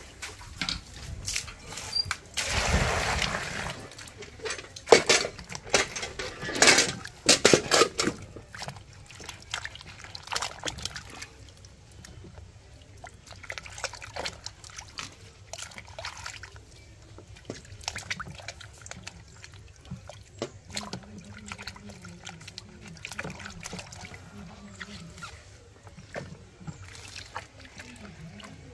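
Water being poured and splashed, with a run of knocks and clatter in the first eight seconds, then quieter handling sounds.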